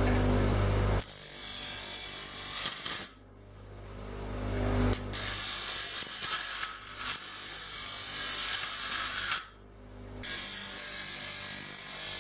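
Bench grinder grinding the end of a thin stainless steel tube square. A steady motor hum gives way to the harsh hiss of metal against the wheel in three long bouts, which break off briefly about three seconds in and again around nine and a half seconds.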